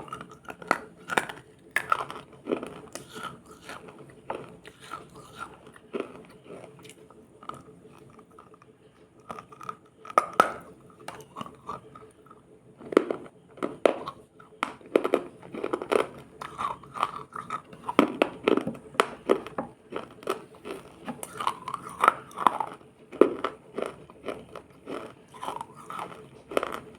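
Close-up biting and chewing of ice: irregular sharp crunches with a short lull about a third of the way in, then denser crunching.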